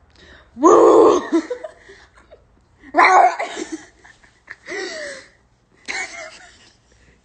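Two girls laughing: a loud "woo!" and laugh about a second in, then three shorter bursts of laughter.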